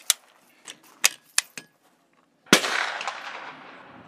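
Several sharp metallic clicks from the rifle's bolt action being handled, then a single loud gunshot about two and a half seconds in, its echo dying away over more than a second.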